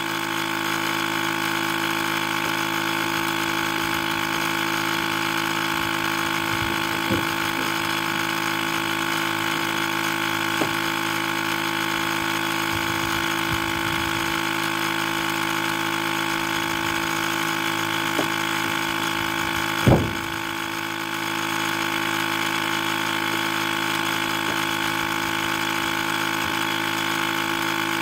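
Steady electrical buzz from a 2006 Ford F-250 6.0 diesel with the key on and the engine not running. A few light knocks of handling in the engine bay come through, and a louder thump comes about twenty seconds in.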